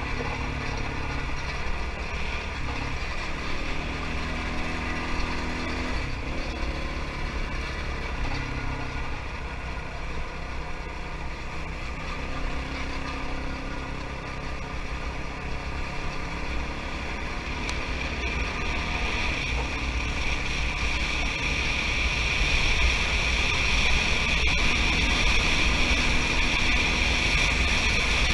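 Kawasaki KFX 450R ATV's single-cylinder four-stroke engine running under way on a gravel road, heard from an on-board camera, its pitch shifting with the throttle. It grows louder in the last third.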